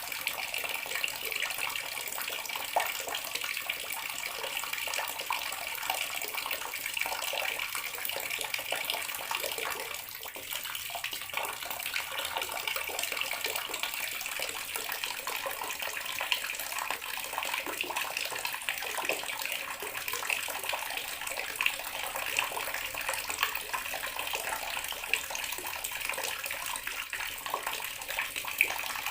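Tap water running steadily into a bathroom sink, a continuous splashing hiss with small flickering spatters, easing slightly for a moment about ten seconds in.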